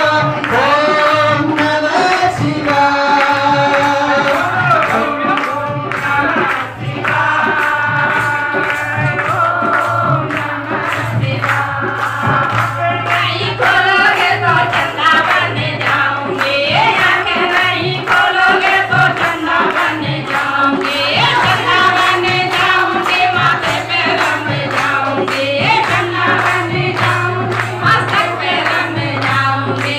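A song with singing voices over a steady beat.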